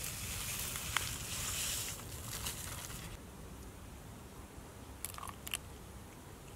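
Powder poured from a paper sachet into a steel pot, with the sachet crinkling and the powder hissing in for about three seconds, then a fainter trickle with a couple of light clicks.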